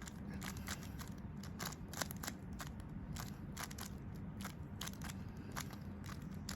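Rubik's cube being turned by hand, its layers clicking in quick, irregular snaps, about two to four a second.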